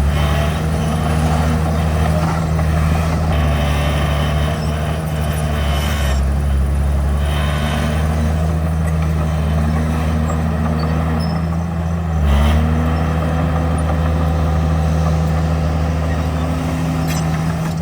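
Heavy diesel engine of earthmoving machinery running steadily, its pitch dipping and then climbing again about twelve seconds in, with intermittent rattling over it.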